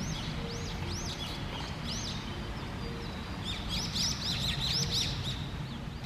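Narcissus flycatcher singing: a run of short, high, arching chirps, coming quicker and closer together about three and a half seconds in, over a steady low rush.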